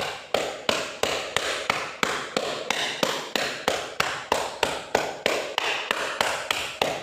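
Cupped-hand percussion on a person's upper back around the shoulder blades: steady rhythmic slaps, about three a second. The clapping is done to loosen phlegm so it can be coughed up.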